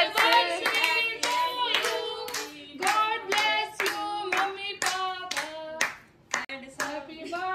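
A small group clapping hands in a steady rhythm, about two to three claps a second, while voices sing along.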